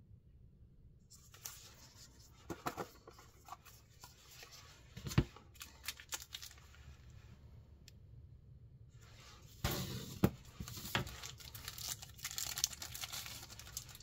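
Packaging being handled and opened: crinkling and tearing rustles with several sharp clicks, the sharpest about five seconds in. After a short pause around eight seconds, the rustling resumes and runs denser.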